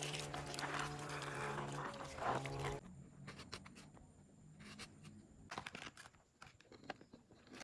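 Water running from a hose and splashing over star fruit being washed, with a steady low hum under it. After about three seconds the water stops, leaving scattered light clicks and taps as cut star fruit slices are handled.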